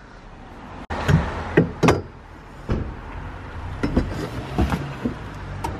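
A stainless steel exhaust back box being handled and set down in a car boot: a series of knocks and clunks over a steady low rumble.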